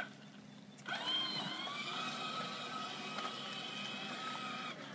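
Electric motor of a battery-powered ride-on toy train whining as it drives along its plastic track. The whine starts about a second in, rising in pitch as it gets going, holds steady, and cuts off near the end.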